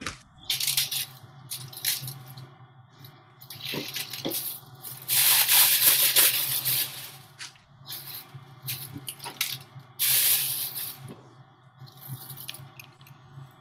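Fresh cabbage leaves being torn apart by hand: irregular crisp crackling and rustling bursts, loudest about five to seven seconds in and again around ten seconds in.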